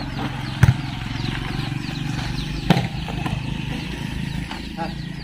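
A volleyball is struck hard twice, about a second in and again near the three-second mark, as sharp smacks. Under them runs a steady low drone, with many short, high, falling chirps.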